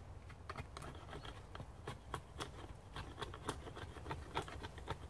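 A knife shaving wood off the belly of a yew bow stave while tillering it, a quick irregular series of short scraping strokes.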